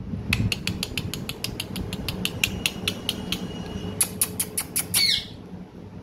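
Ring-necked parakeet giving a fast run of sharp clicking chips, about seven a second, then a few louder ones, ending about five seconds in with a short squawk that falls in pitch.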